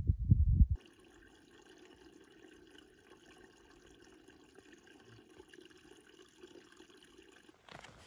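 A small mountain stream trickling over stones, quiet and steady, after a short burst of low thumping that cuts off just under a second in.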